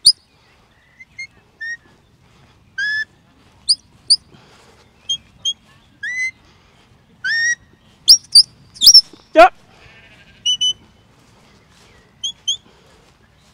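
Shepherd's whistle commands to a working sheepdog: a series of short, sharp whistle blasts and rising notes, some in quick pairs, with the loudest cluster about eight to nine seconds in and one falling note just after.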